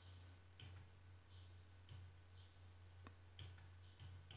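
Near silence: a low steady hum with a few faint computer-mouse clicks, the clearest about three seconds in.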